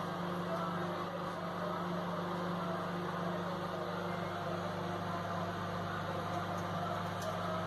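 Daewoo KOG-A8B5R microwave oven running with a steady hum.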